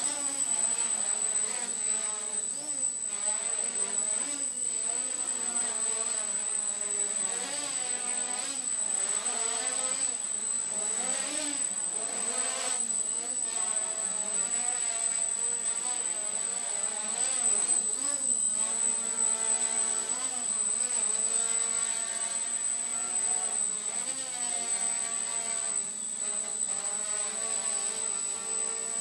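Micro quadcopter's four Turnigy 1811 2900kv brushless motors spinning 5030 propellers in flight, a buzzing whine whose pitch keeps rising and falling as the throttle is worked to hold and move the craft. A steady high whine runs alongside.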